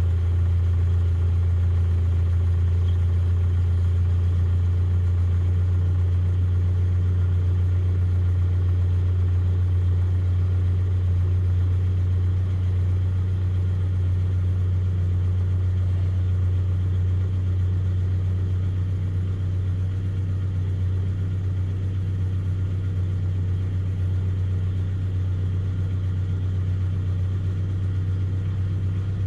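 A vehicle's engine idling steadily as it warms up after a cold start: a deep, even hum that gets slightly quieter about halfway through.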